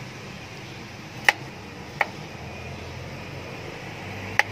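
Cleaver chopping through okra pods onto a chopping board: three sharp knocks, about a second in, two seconds in and near the end, as the ends of the pods are trimmed off. A steady low hum runs underneath.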